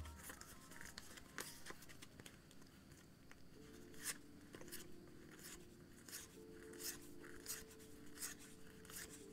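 Pokémon trading cards being flicked one by one through the hands: soft swishes and ticks of card stock sliding against card, about one or two a second.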